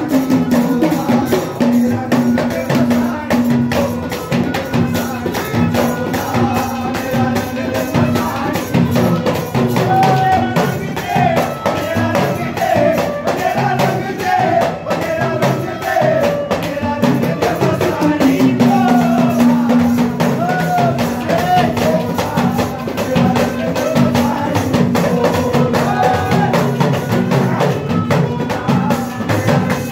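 Devotional bhajan music on deru drum, ghada clay pot and Indian banjo: a fast, steady percussion beat under a held drone, with a wavering melody line over it.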